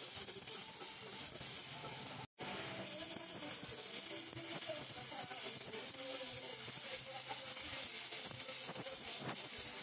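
Gas welding torch flame hissing steadily while aluminium filler rod is melted onto an aluminium motorcycle crankcase. The sound cuts out for a split second a little over two seconds in.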